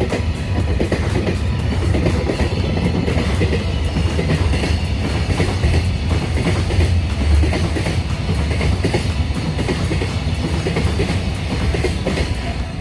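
Freight train running past at speed: a steady heavy rumble with wheels clacking over the rail joints, the loudness falling away right at the end.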